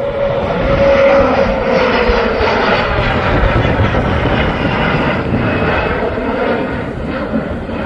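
Sukhoi Su-30MKI twin-engine jet fighter flying low on landing approach with its gear down: a loud, steady jet roar with a whine that falls in pitch over the first few seconds as it passes.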